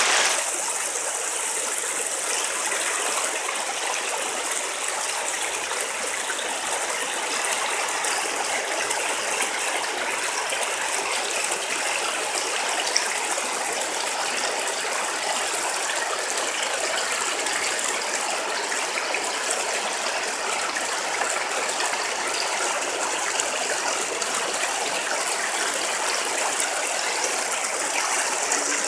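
Stream water rushing steadily, a constant even hiss of flowing water.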